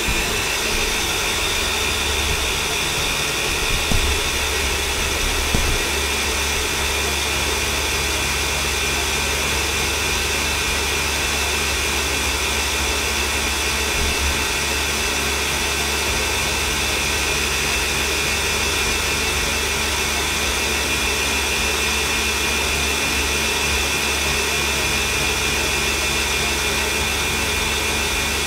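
Electric mixer running steadily, its beaters whipping cream toward soft peaks, with an even motor whine and two light knocks a few seconds in.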